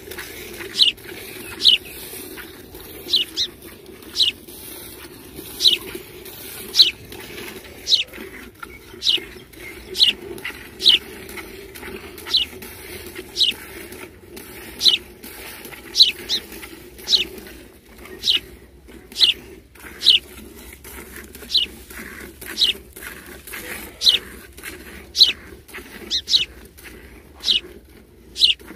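Milk squirting from a cow's teats into a partly filled metal pail during hand milking. It comes as short, high, falling swishes at about one squirt a second, following the squeezes of the hands.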